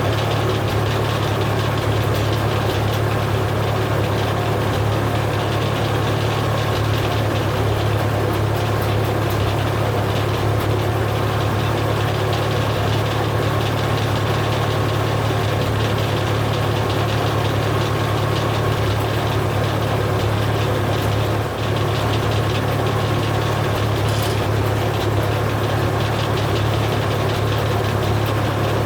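Foley Belsaw M-14 circle sawmill running steadily under its engine power, a constant low engine hum with the mill's noise over it, barely changing except for a brief dip about 21 seconds in.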